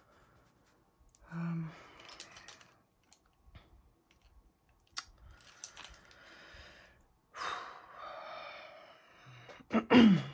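A woman sighing and giving short hums to herself in hesitation, with a few faint clicks and rustles as pastel pencils are handled.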